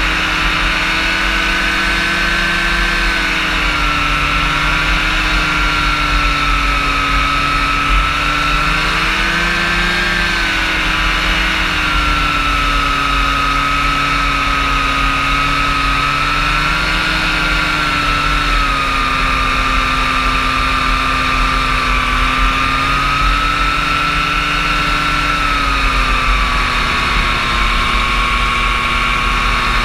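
Rotax engine and pusher propeller of a powered parachute running in flight, heard loud from the seat. The engine's pitch wavers gently up and down and eases lower overall as the aircraft descends toward a field.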